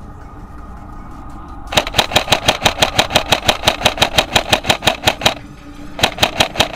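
Tokyo Marui P90 High Cycle airsoft electric gun firing two full-auto bursts, a rapid, even rattle of the gearbox cycling. The first burst starts about two seconds in and lasts about three and a half seconds; the second, about a second long, comes near the end.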